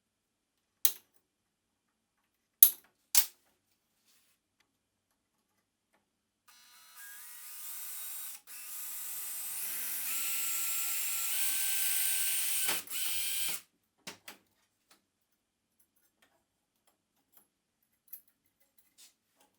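A few sharp knocks, then a power tool runs for about seven seconds, getting louder with its pitch stepping upward, and briefly cuts out partway through. A few faint clicks follow.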